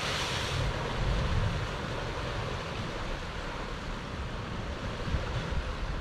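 Ocean surf against lava rocks: a wave breaks and sprays white water just at the start, then washes back over the rocks. Wind rumbles on the microphone throughout.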